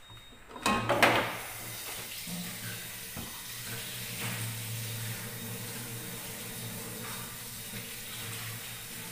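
Water starts running suddenly about a second in, with a loud first splash, then runs steadily as a rushing hiss over a low hum.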